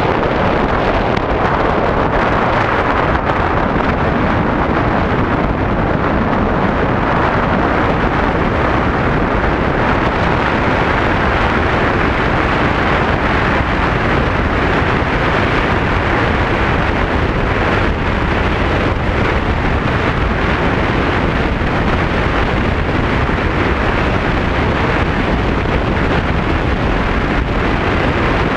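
Steady wind noise buffeting the microphone of a GoPro action camera on a moving Yamaha Tricity scooter, with the ride's road noise underneath.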